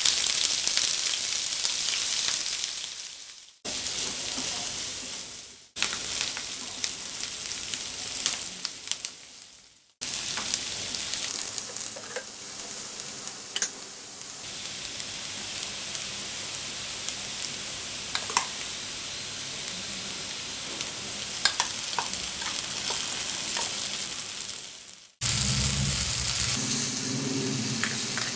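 Food sizzling in a hot frying pan, a steady hiss with scattered sharp clicks of a utensil against the pan. The sizzle breaks off and starts again several times.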